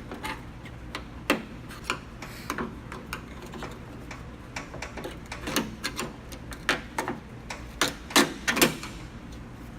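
Flathead screwdriver prying at the thin steel tab that retains the door lock cylinder, giving a string of irregular metallic clicks and taps as the tab is worked loose, the loudest near the end.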